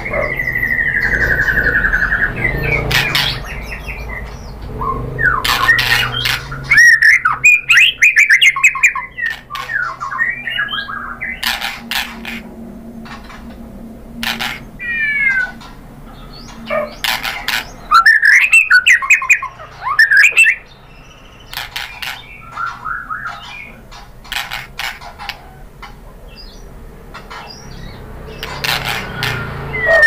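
White-rumped shama (murai batu) singing in loud bursts: a falling whistle, chattering trills and gliding whistled phrases mixed with sharp clicking notes, with short pauses between phrases. The loudest bursts come about seven and eighteen seconds in.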